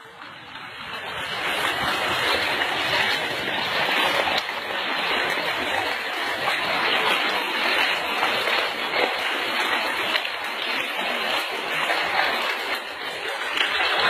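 Water gushing out of a hollow in a tree trunk and splashing down, a steady rushing splash that grows louder over the first second or two.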